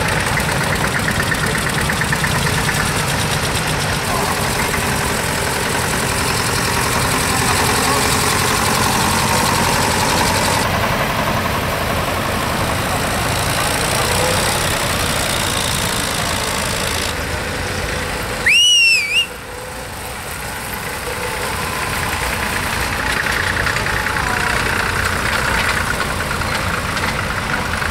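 Old tractors' diesel engines running as a line of vintage tractors drive past one after another. About two-thirds of the way through, a short shrill whistle cuts over them, rising and then falling in pitch; it is the loudest sound.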